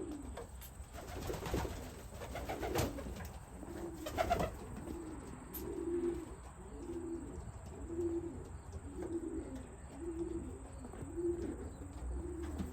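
Racing pigeons cooing in the loft: a low coo repeated about once a second, with a few short knocks in the first few seconds.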